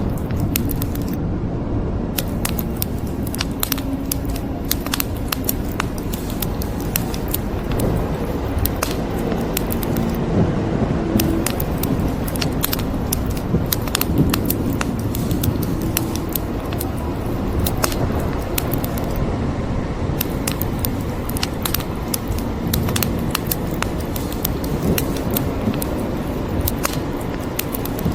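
Wood fire crackling, with many sharp pops and snaps several times a second over a steady low rumble of rain and fire.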